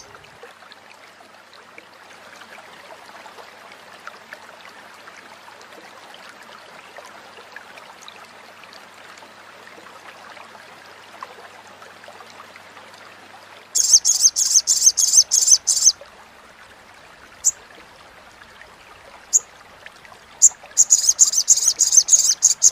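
Sogok ontong sunbird giving its rapid, dry chattering call (crecetan): a high, fast run of chips lasting about two seconds past the middle, two lone chips, then a longer run of chatter near the end. Under it, a faint steady hiss like running water.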